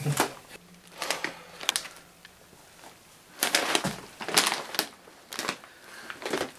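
A plastic packet crinkling and rustling as it is grabbed and handled, in irregular crackly bursts that come thickest in the middle.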